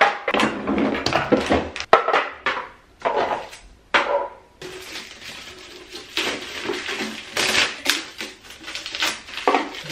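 Hard clear plastic storage bins and lids clacking and tapping as they are handled and set down on a tile floor, a string of irregular clicks and knocks.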